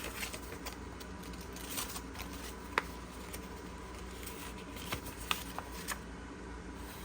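Small items being handled: a few light, sharp clicks and taps, with faint rustling of paper and card.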